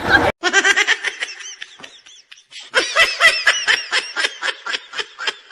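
High-pitched laughter in rapid pulses of about five a second, in two runs with a short break about two seconds in.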